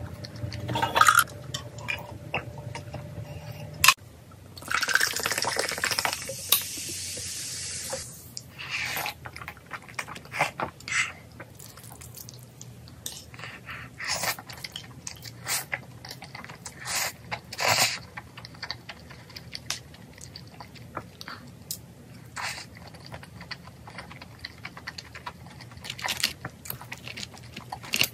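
Close-up eating sounds: wet slurping and chewing of sauce-coated glass noodles and fried food, with chopsticks clicking against a bowl. A long slurp comes about five seconds in, followed by many short chews and clicks.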